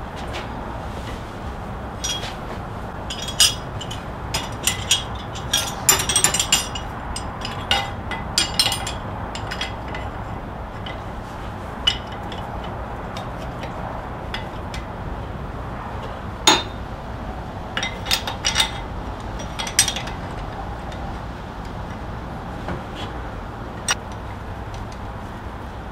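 Metal hand tools clinking and clattering against each other and the crankshaft harmonic balancer as they are handled, in scattered bunches of sharp clinks over a steady low background noise.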